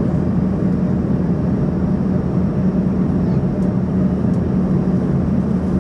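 Steady in-flight cabin noise of an Embraer ERJ-145 in cruise: the drone of its rear-mounted Rolls-Royce AE 3007 turbofans and rushing airflow, with a steady low hum, unchanging throughout.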